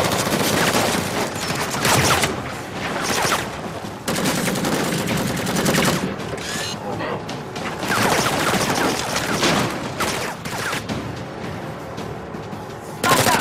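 Dense, rapid automatic rifle fire from several guns, with music underneath.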